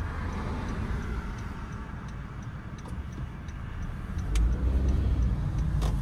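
Car cabin noise from the engine and tyres, with the turn-signal indicator ticking evenly through the first three seconds or so. About four seconds in the low rumble grows louder as the car turns.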